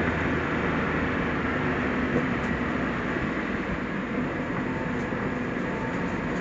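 Steady driving noise from a new-model Suzuki Jimny under way: the engine's drone mixed with tyre and road rumble, even throughout with no distinct events.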